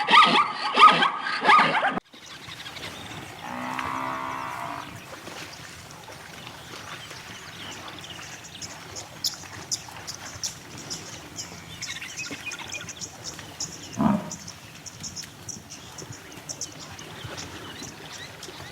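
Rapid, loud barking calls from an animal for about two seconds, cut off abruptly. Then quieter outdoor ambience with a low drawn-out call about four seconds in, a shorter low falling call near fourteen seconds, and faint high insect-like ticking.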